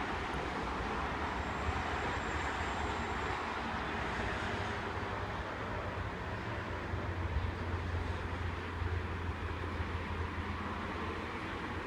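Oscar (H set) electric intercity train approaching the platform: a steady low rumble of the train running on the track, growing slightly heavier past the middle.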